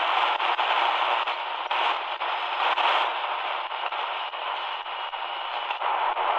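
Shortwave static hissing from the XHDATA D-219 portable radio's speaker as its dial is tuned across the 4.75–5.06 MHz band. The noise swells and fades, with a faint high whistle in the middle.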